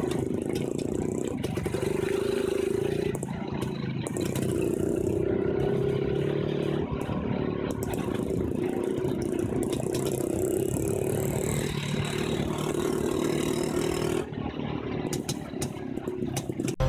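Vintage Jawa two-stroke motorcycle engine running under way, a steady, buzzing note mixed with wind rushing over the microphone; the engine drops in level near the end.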